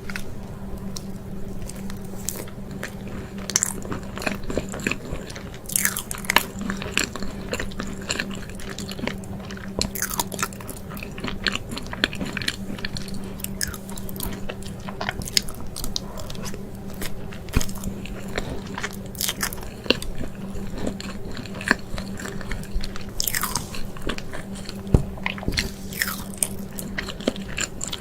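Close-miked mukbang eating: repeated bites and chewing, with many short sharp mouth clicks and crackles over a faint steady hum.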